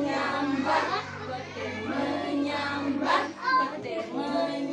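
A group of young children singing together with a woman's voice leading, a class song with held notes.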